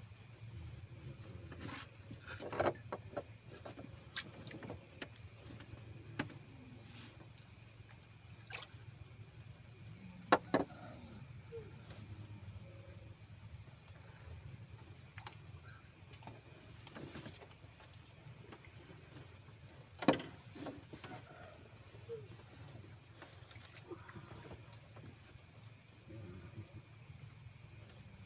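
An insect chirping in a steady, even, high-pitched pulse, about two to three chirps a second, with a few sharp knocks, the loudest about ten and twenty seconds in.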